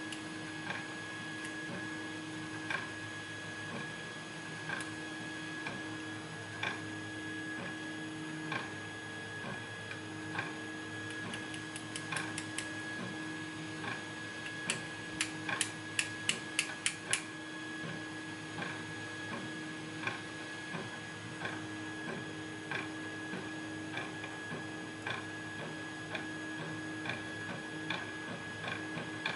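Light scattered clicks and taps of small metal lock pins and parts being handled during the take-down of a pin-tumbler lock, with a quick run of sharp clicks about halfway through. A steady electrical hum runs underneath.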